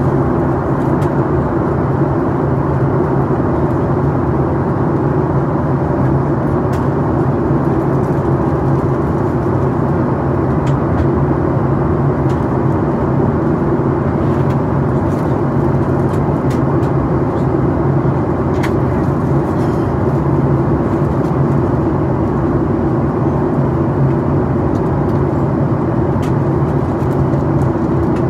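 Steady cabin noise inside a Boeing 737 MAX 8 airliner on descent: an even drone with a low hum from its CFM LEAP-1B turbofan engines and the rush of air along the fuselage.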